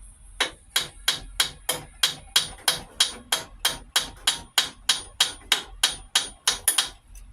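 Brass hammer striking a wrench fitted on a seized, heated cylinder-head fastener: about twenty quick, ringing blows, about three a second, shock-loosening the stuck fastener.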